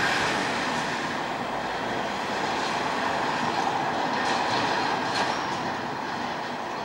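Street traffic noise: a steady vehicle rumble and hiss that swells slightly at the start and again about four seconds in, with a couple of faint clicks.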